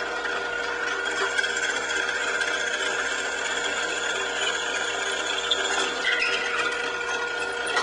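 Benchtop drill press running at speed with a steady, constant motor and spindle whine, as the bit is fed down into a block of wood.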